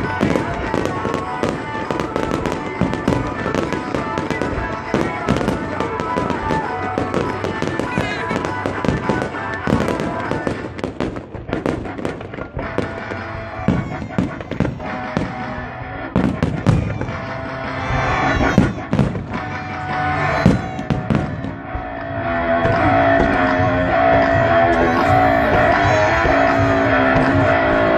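Fireworks display: a rapid run of shell bursts and bangs over loud soundtrack music. From about two-thirds of the way through the music, with guitar, grows louder and steadier and the bangs thin out.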